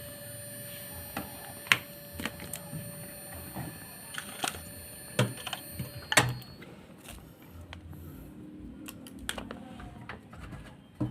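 LG inverter washing-machine BLDC motor running under test, with a steady high electrical whine that cuts off about six seconds in. Scattered sharp clicks and knocks sound throughout, the loudest a few near the middle.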